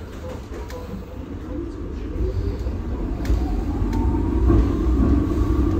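VBZ Mirage tram pulling away: a low rumble of wheels on rails that grows louder, with a faint whine rising in pitch as it picks up speed.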